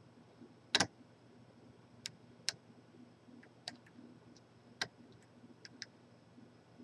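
Lock picks clicking in the keyway of a large Corbin padlock: scattered sharp metal clicks at irregular intervals, the loudest about a second in, as the pins are worked under light tension.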